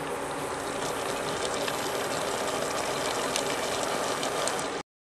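A pot of chicken feet adobo simmering: a steady hiss with many small crackles and pops, cutting off abruptly near the end.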